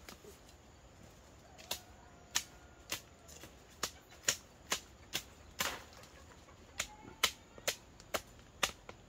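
A series of sharp, short knocks or clicks at an uneven pace, roughly two a second, starting about a second and a half in, over a faint steady hiss.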